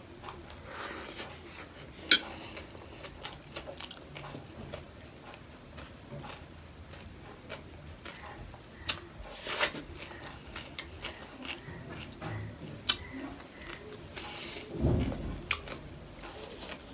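Close-up eating sounds of chatpate and panipuri: crunching and chewing, with a spoon clinking and scraping against a bowl in scattered sharp clicks, and a louder low thump near the end.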